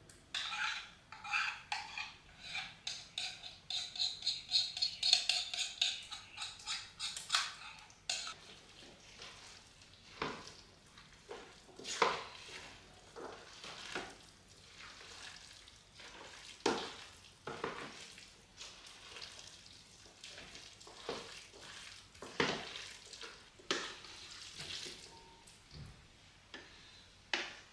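A spoon stirring and scraping a potato salad in a large cooking pot: quick strokes, about three a second, for the first eight seconds, then only the odd knock or scrape.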